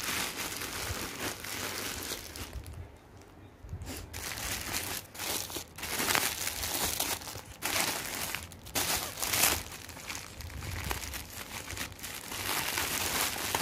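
Clear plastic packaging crinkling and rustling as it is handled and unwrapped, irregular throughout, with a quieter lull about three seconds in.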